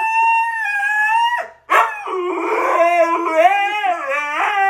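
Husky howling: one held call that breaks off about a second and a half in, then a longer howl whose pitch wavers up and down.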